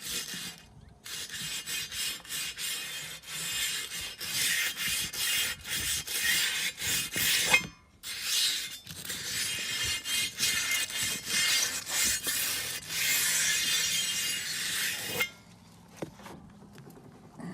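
Hand wire brush scrubbing rust off the bead seat inside a John Deere 5055e tractor's wheel rim, in rapid back-and-forth strokes with two brief pauses. The scrubbing stops about two seconds before the end.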